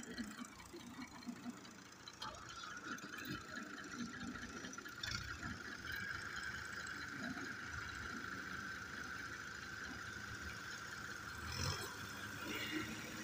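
Diesel tractor engines running under load, pulling a heavily loaded sugarcane trolley. A steady high whine comes in about two seconds in and holds over the low engine rumble.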